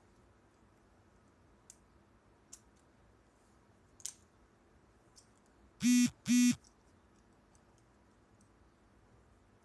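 A few faint, scattered metallic clicks from police handcuffs being worked with a fork. About six seconds in come two short, loud buzzy beeps, about half a second apart.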